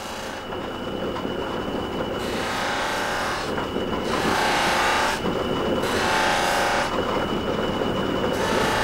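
Spinning rag polishing wheel on a polishing stand being dressed with a stick of pumice compound. A steady whir of the running wheel, with a scraping sound that swells four times as the compound is pressed against the wheel.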